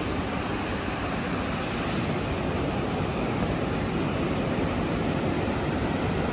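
Steady rush of the fast, rocky Parvati River running over rapids, an even roar with no breaks.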